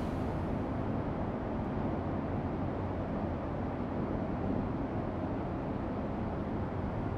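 Steady rushing noise with a deep rumble, even in level, with no knocks, tones or voices in it.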